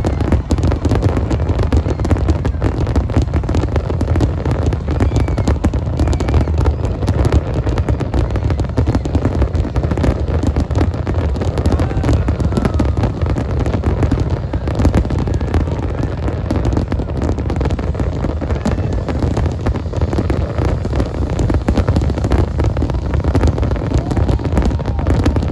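Fireworks display going off in a dense, continuous barrage: rapid overlapping bangs and crackle with deep booms, without a break.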